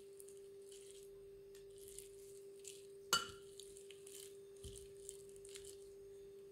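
Metal potato masher mashing boiled egg and mayonnaise in a glass bowl: faint scraping strokes under a second apart, and one sharp clink of the masher against the glass about three seconds in that rings briefly. A steady faint hum runs underneath.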